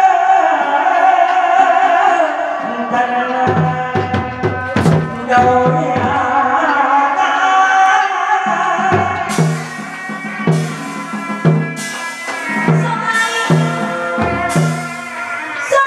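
Traditional hát bội (tuồng) theatre ensemble playing: a sustained pitched melody over drum strokes. About halfway through, the drums settle into steady beats of roughly one a second, with a cymbal crash on many of them.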